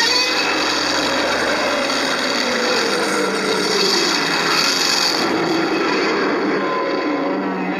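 Godzilla roar sound effect: one long, harsh, rasping screech that starts suddenly and holds for about eight seconds, its pitch sliding as it goes.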